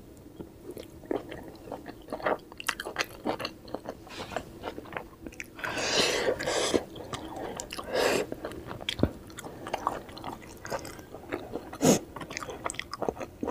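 Close-miked chewing of steamed vegetable dumplings (momos) dipped in chutney: many short mouth clicks, with a few louder moments about six, eight and twelve seconds in.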